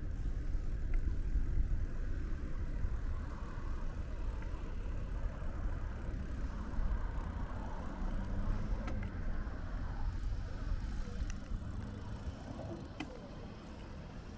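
Road traffic rumble on a street, a steady low noise that gradually fades toward the end.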